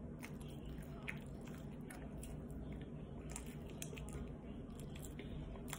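A person chewing food close to the microphone, with faint scattered wet mouth clicks and smacks over a low steady hum.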